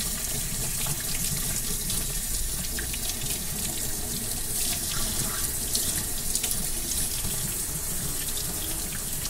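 Kitchen faucet running steadily into a stainless steel sink, the stream splashing over a whole snapper as it is rinsed by hand.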